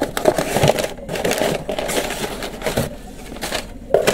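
Packaging being handled and torn open by hand: a dense run of irregular crackles, rustles and small clicks.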